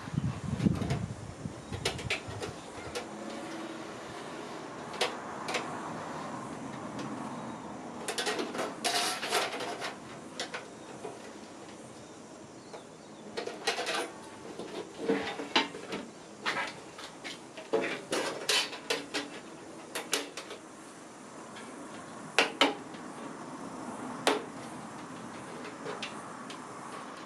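Small metal computer parts, screws and brackets clinking and clicking as they are handled and fitted. The clicks come in irregular clusters, and there is a low thump at the start.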